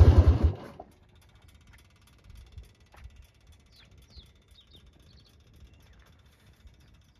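2004 Harley-Davidson Heritage Softail Classic's Twin Cam 88B V-twin running, then shut off, dying away within the first second. Afterwards only faint bird chirps.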